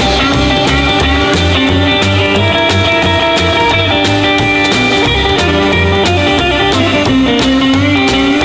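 Live rockabilly band playing an instrumental passage: electric guitar over a pulsing upright bass line and a Gretsch drum kit keeping a steady beat.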